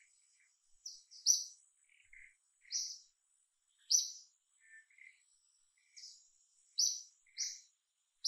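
Short, high chirps come one or two a second, with softer, lower chirps between them. Under them runs a faint, steady, high-pitched whine.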